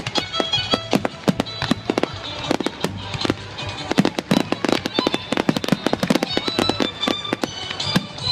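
Fireworks going off in a rapid, dense string of sharp bangs and crackles, with music playing alongside.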